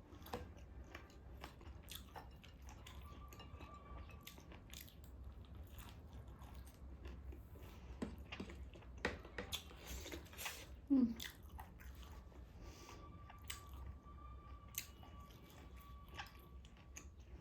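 A person chewing and biting food close to the microphone: irregular crunchy bites and wet mouth smacks while eating taro roots with dried meat.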